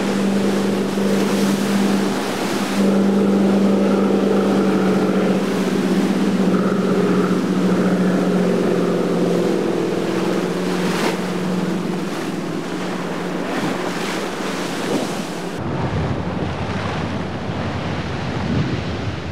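Motorboat engines running steadily, with a hum that slowly sinks in pitch, over loud churning and rushing wake water. In the last few seconds the engine hum drops away, leaving water splashing as a pontoon boat crashes through the wake.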